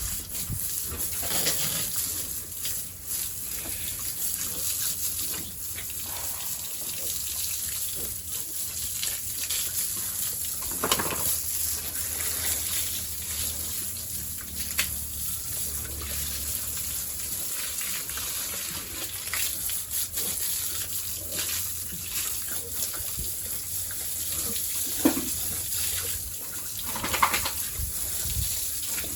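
Water rushing steadily, as from a hose spraying a pig pen, with a few scattered knocks and splashes.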